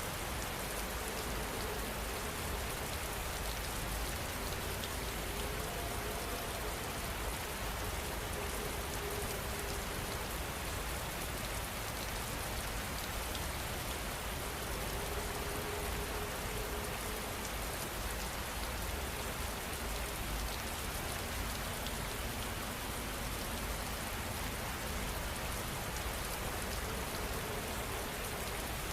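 Heavy rain falling steadily, an even wash of raindrops hitting surfaces.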